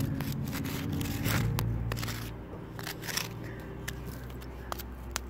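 Fingers scraping and poking crumbly dry dirt close to the microphone, giving scattered small clicks and crackles over a low hum.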